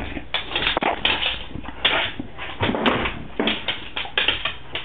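An English bulldog playing close up: an irregular run of short, noisy huffs and scuffles, a few a second.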